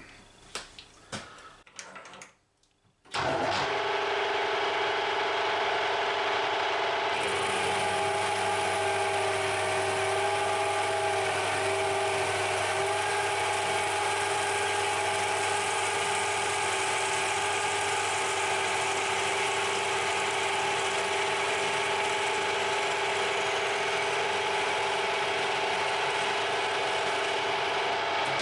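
Metal lathe running at 800 RPM while parting off a steel billet: a steady motor and gear whine with several held tones. About seven seconds in, a higher hiss from the cut joins and one tone wavers for a few seconds.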